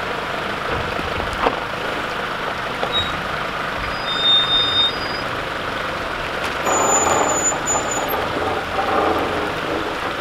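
Off-road 4x4's engine running at low speed as it crawls down a rocky track and into a stream, with water splashing around the tyres and a few brief high squeaks.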